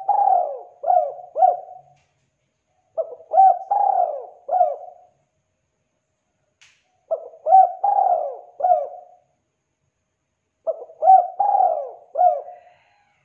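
Spotted dove cooing: a phrase of about five coos, repeated four times at intervals of about three and a half seconds.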